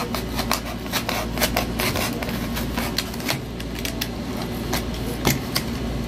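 Utility knife cutting notches into a strip of cardboard: a fast, irregular run of short scratching clicks.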